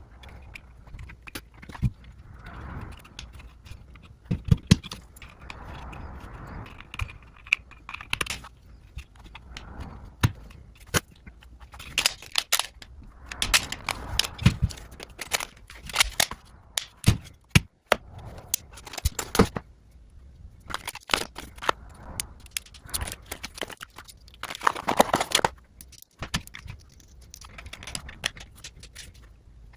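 Handling of product packaging and hardware: plastic and cardboard rustling and crinkling, broken by frequent sharp clicks and knocks of plastic and metal parts.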